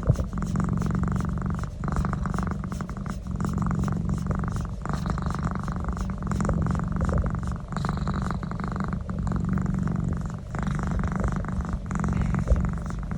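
Domestic cat purring steadily during a neck rub, in long stretches broken by short pauses for breath.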